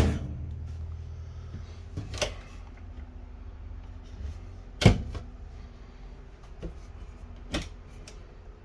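Sharp clicks and knocks of kitchen cabinet doors being opened and shut, four of them two to three seconds apart, the loudest about five seconds in, over a low steady hum.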